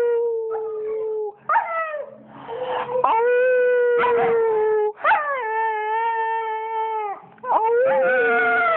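Siberian husky howling: a run of long howls, each rising sharply at the start, held level for one to two seconds, then dropping away, with short breaks between them.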